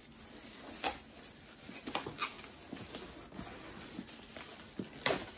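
Hands handling packaging and a disc golf disc: scattered light taps, clicks and rustles, the sharpest about five seconds in.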